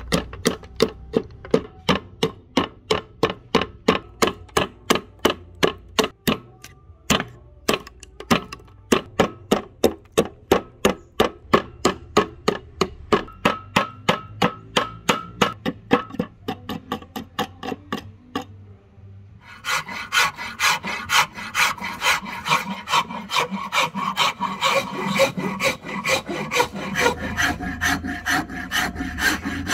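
Wooden axe handle being hand-filed in steady strokes, about three a second. After a brief pause near two-thirds through, the strokes come faster and denser.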